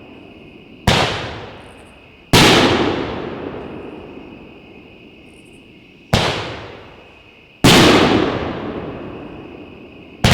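Aerial shells from a 2-inch finale rack, two in turn. Each sharp launch thump is followed about a second and a half later by a louder shell break whose boom echoes away over a second or two.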